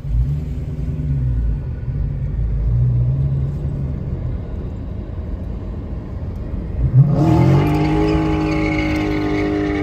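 A car engine rumbles at low revs while driving, its pitch wavering. About seven seconds in it revs up sharply under hard acceleration and holds at high revs.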